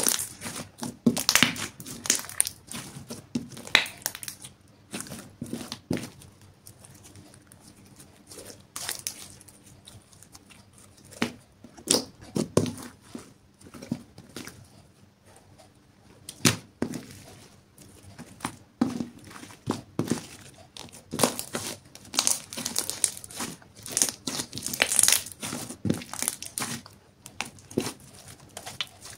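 Hands kneading, squeezing and stretching a sticky slime of clear slime mixed with lipstick and glitter, making irregular wet pops, clicks and crackles as it sticks and tears away from the fingers. The pops thin out in the middle and grow busier near the end.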